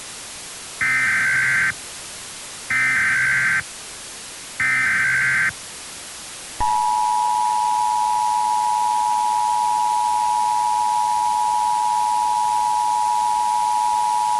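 Emergency Alert System SAME header: three short bursts of warbling data tones about a second apart. They are followed, about six and a half seconds in, by the steady two-tone EAS attention signal, which announces an emergency alert message. A hiss of radio static lies under it all.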